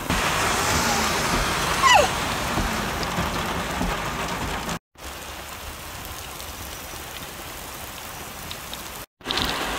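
Heavy rain pouring down and splashing on wet pavement, a steady hiss with a short falling whistle about two seconds in. The hiss drops quieter after a brief cutout about five seconds in, and comes back louder after another near the end.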